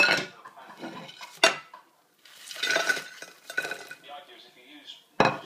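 Crockery clinks and clatter as chips are tipped from a bowl onto a dinner plate: sharp knocks at the start, again about a second and a half in, and near the end, with a rattling slide of chips in between.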